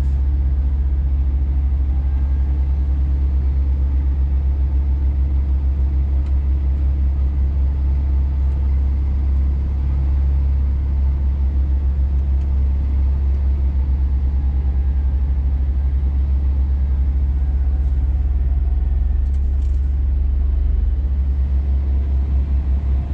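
Scania truck's diesel engine running with a steady low drone, heard from inside the cab while the truck drives on a snow-covered road.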